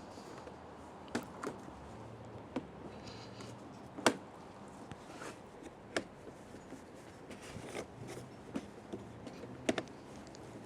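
Scattered clicks and light knocks, about half a dozen, the loudest about four seconds in, from handling and fitting parts of a pressure washer during setup, with the machine not running.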